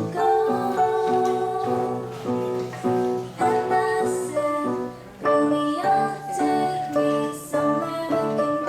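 Background music: a song with singing over piano or keyboard accompaniment.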